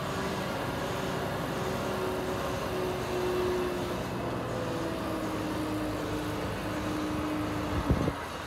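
Diesel engine of a Volvo FM refuse truck with a Heil Big Bite rear-loader body, running steadily as the truck moves slowly, its note rising a little and then easing down. A few sharp knocks come near the end.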